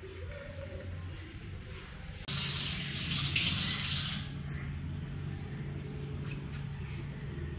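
A kitchen tap is turned on and runs hard into the sink for about two seconds, then is shut off.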